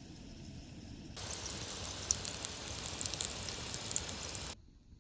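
Hot oil sizzling and crackling as soya momos fry. It starts abruptly about a second in and cuts off suddenly near the end.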